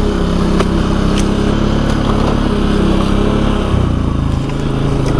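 ATV engine running at steady revs, then easing off about four seconds in and dropping to low revs near the end, with a few light knocks and rattles.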